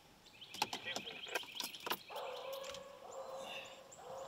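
Hounds baying in the distance, with one long held bawl starting about two seconds in, over birds chirping. A few sharp snaps of sticks or leaves come in the first two seconds.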